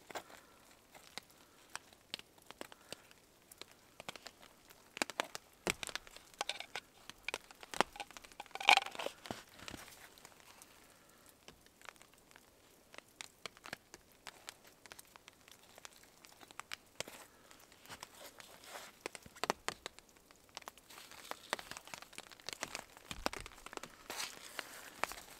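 Handling noises from gloved hands working a saw blade and a wooden stick: scattered small clicks, rustles and crinkles, with a louder burst of rustling about nine seconds in.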